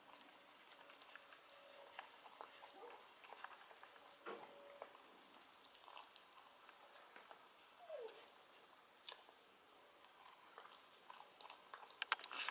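Puppy eating from a stainless steel bowl: faint, soft chewing and mouth sounds with small scattered clicks, and a few louder clicks near the end.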